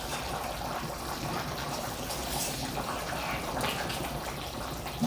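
A pot of stew simmering on a wood-burning stove: a steady bubbling hiss with faint scattered crackles.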